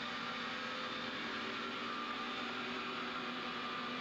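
Powered-up CNC lathe giving off a steady electrical hum and whir, with a few faint constant tones and no change in pitch or level.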